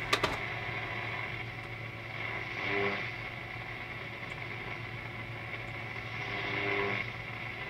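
Eddystone 840A valve shortwave receiver's loudspeaker putting out static hiss over a low hum as it is tuned with no antenna connected. Faint snatches of signals rise out of the noise about three seconds in and again near the end.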